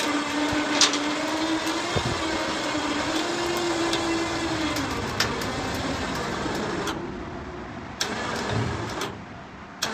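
A motor running steadily with a humming tone that rises slightly in pitch a few seconds in and then eases back, with a few short clicks. The sound drops and jumps abruptly several times near the end.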